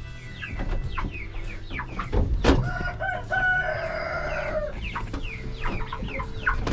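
Chickens clucking in short calls, with a rooster crowing once about three seconds in, a single long held crow of about a second and a half.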